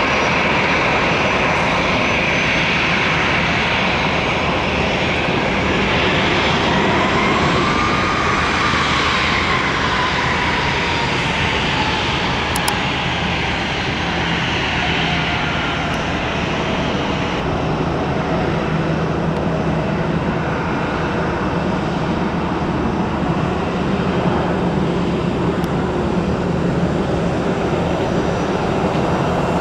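Jet airliner's engines passing: a loud, steady rush of engine noise. A whining tone rises and then slowly drops in pitch a quarter to halfway through as the aircraft goes by.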